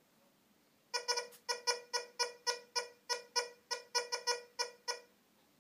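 Tesoro Tejon metal detector giving a rapid string of short, same-pitched beeps as a tiny speck of tin foil is swept back and forth over its search coil: the detector is picking up the foil. The beeps start about a second in, come several a second, and stop shortly before the end.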